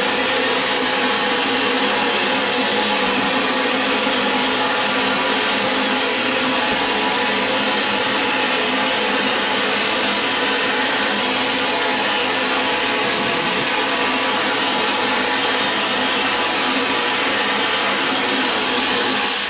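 Vapor blasting nozzle spraying a slurry of glass beads and water onto a carburetor body: a loud, steady hiss that stops abruptly at the end.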